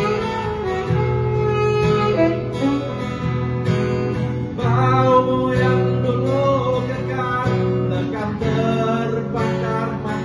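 Live acoustic guitar accompanying a man singing a slow song into a microphone, his held notes wavering with vibrato.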